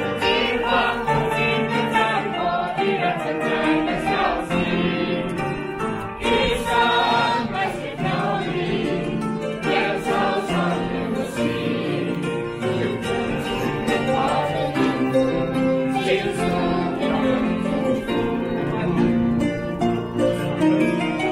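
A public upright piano being played, with several voices singing along.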